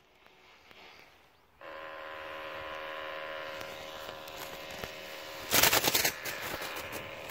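A small motor runs with a steady whir and a fine rapid rattle, starting about one and a half seconds in. About five and a half seconds in, a loud rough burst of noise covers it for under a second.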